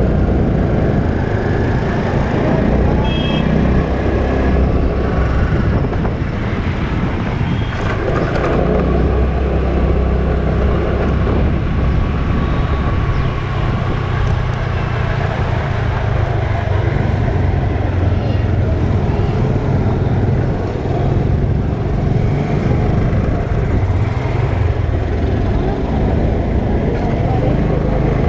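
A motor scooter riding through city traffic: its small engine running steadily under a heavy rumble of wind on the microphone, with the noise of surrounding cars and auto-rickshaws. A short high-pitched beep sounds about three seconds in.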